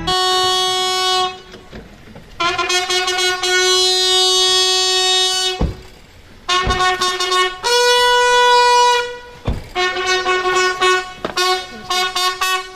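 Brass band playing long held notes, shifting once to a higher pitch, then a run of shorter, quicker notes near the end. A few deep thumps fall between the notes.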